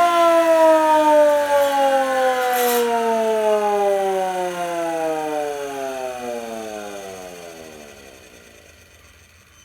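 EMB 1011 siren running on 120 V, winding down: its tone falls steadily in pitch and fades out over about nine seconds.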